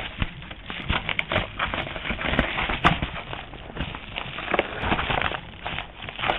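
A yellow mailing envelope handled and pulled open close to the microphone: irregular rustling and crackling of the packaging, with many scattered sharp clicks.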